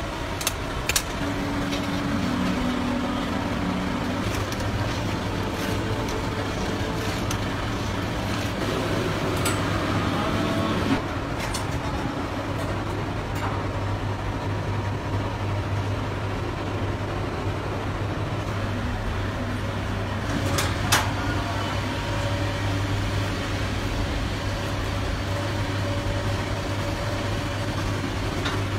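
Steady drone of commercial kitchen machinery with a constant low hum, broken by a few sharp metal clicks and knocks, the loudest about twenty seconds in.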